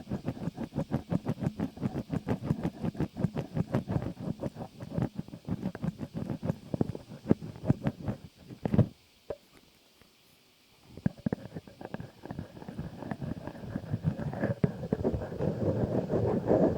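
Close-up ASMR trigger sounds on the microphone: a fast, even run of soft taps or scratches, about five a second, then a gap of about two seconds, then denser rustling that grows louder near the end.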